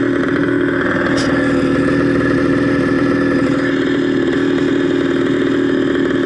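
Trail motorcycle engine running steadily under way, its note held at an even pitch.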